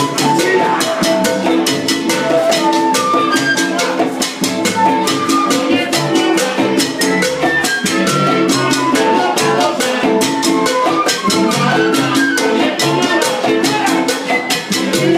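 Live salsa band playing, with a busy, steady drum and percussion rhythm under short melodic lines.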